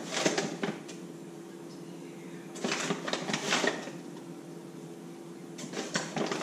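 Measuring cup scooping flour from a paper flour bag, the paper bag rustling, in three short bouts about three seconds apart. A steady low hum runs underneath.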